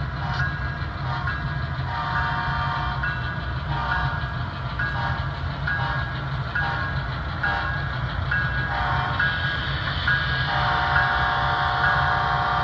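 A model diesel locomotive's sound system, styled as an EMD SD70ACe, plays a steady engine rumble under a bell ringing about twice a second. Its air horn sounds short blasts early on and a long blast from about ten seconds in to near the end.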